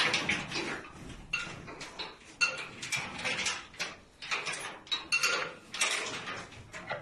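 Steel feed barrier rattling and knocking as bulls move their heads through it: a string of short, irregular clanks, about two a second.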